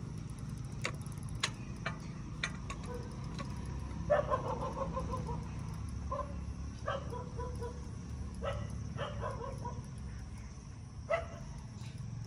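A dog barking in short bursts, starting about four seconds in and recurring several times, over a steady low background rumble. A few sharp clicks come before the barking.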